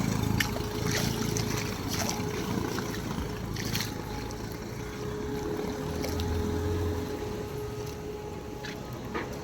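Vehicle moving through floodwater on a waterlogged street: water sloshing and splashing around it over a steady hum.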